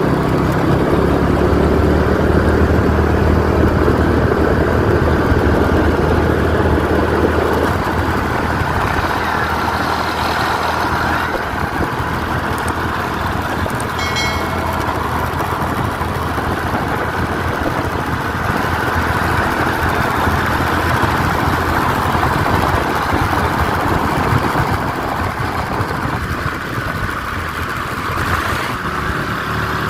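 Vehicle engine running steadily under continuous road and travel noise, with a brief high beep about halfway through.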